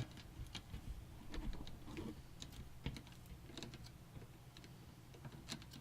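Faint, irregular light clicks and taps of computer parts being handled and fitted inside a PC case.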